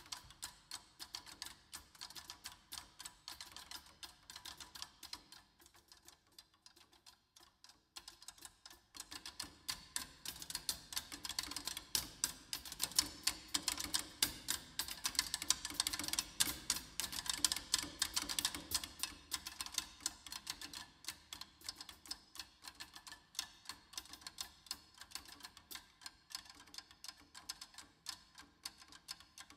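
Quick, light drumstick strokes on drums, dense and clicking, with a quieter stretch about six seconds in and louder playing from about nine seconds in.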